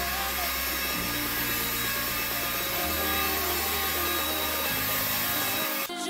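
Cordless stick vacuum running steadily, its powered brush head rubbing across the pile of a rug.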